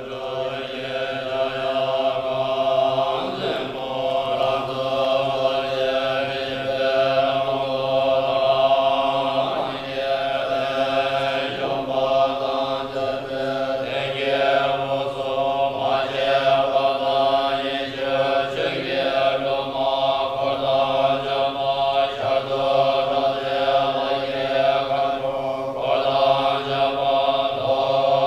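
Tibetan long horns (dungchen) played together in one continuous low drone, held without a break, with shorter rising-and-falling sweeps sounding above it every few seconds.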